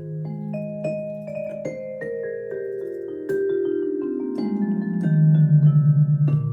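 A Roland FP-30 digital piano's bell tone being played: struck notes ring on and overlap over a low line that steps downward. It grows louder, with a pulsing wobble, over the last second and a half.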